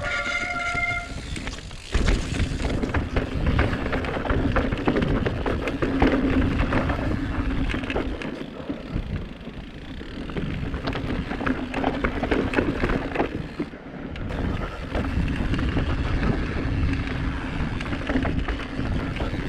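Mountain bike riding down a dirt trail: tyres rolling over rough ground, the bike rattling and knocking over bumps, with wind on the microphone. A brief high-pitched squeal sounds in the first second, and the noise eases twice before building again.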